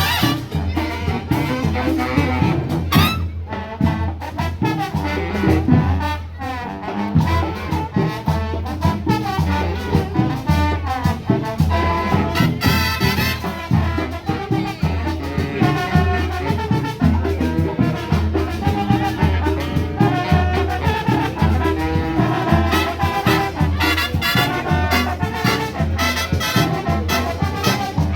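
Brass band playing upbeat Latin music, trumpets and trombones over a steady bass beat.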